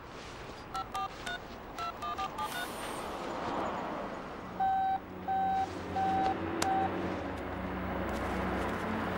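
Touch-tone telephone being dialled: about ten quick dual-tone beeps, then, a couple of seconds later, four longer evenly spaced beeps on the line, over a low steady hum.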